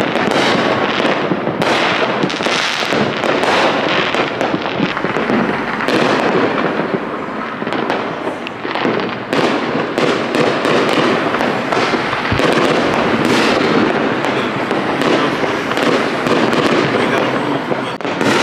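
Fireworks going off: a dense, continuous run of bangs and crackles with no break.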